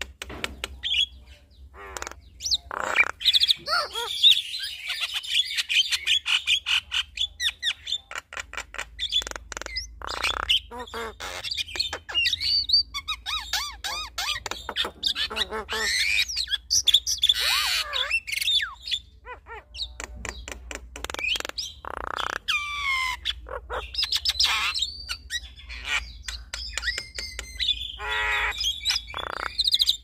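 A male and a female Javan myna calling back and forth in a duet. Their calls are a dense run of sharp clicks, whistled and gliding notes and harsh squawks.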